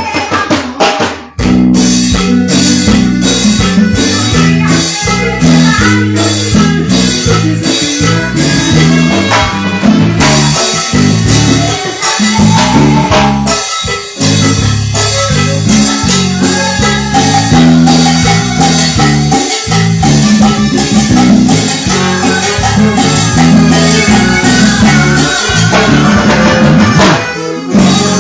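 Live band music: a drum kit and a stepping bass line keep a steady Latin dance beat, with a short break about a second in.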